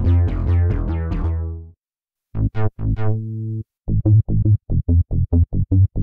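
Synth bass presets of the Roland SRX Dance Trax software synth played one after another. The 'Fizzle Bass' patch plays a sustained bass phrase that stops about a second and a half in. After a short gap come a few short notes, then a fast staccato bass riff of about five notes a second.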